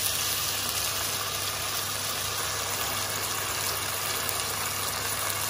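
Chopped fresh tomatoes sizzling in hot olive oil on top of frying onions in a stainless steel pot. The sizzle starts suddenly as they go in and then hisses steadily.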